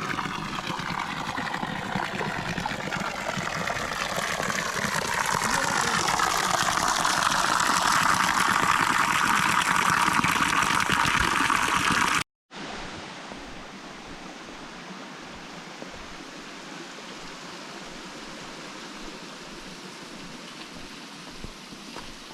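Running water, loud and close for the first twelve seconds or so. After a sudden cut it gives way to a quieter, steady flow.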